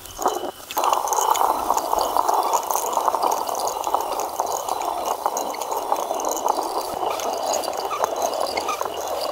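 Stone hand quern being turned to grind dry ragi (finger millet) into flour: a steady gritty rasp of the upper stone grinding grain against the lower stone, settling in about a second in.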